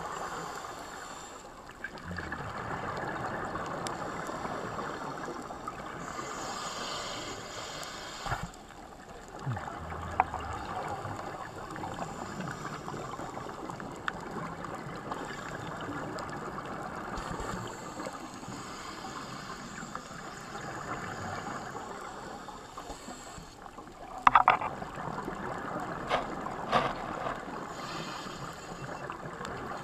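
Underwater ambience picked up through a camera housing: a steady rushing water noise, with a few sharp clicks or knocks near the end.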